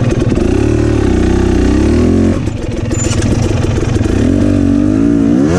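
Enduro dirt bike engine running at low revs as it is picked over rocks, the revs rising and falling with the throttle, dropping off about two seconds in and climbing again near the end.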